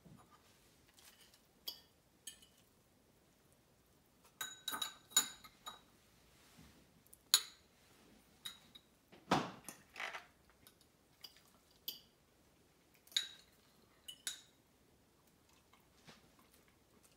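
A metal fork clinking and scraping against a plate as a piece of omelet is cut off, in scattered sharp taps with a short ring, a quick run of them about four to six seconds in, and one duller knock about nine seconds in.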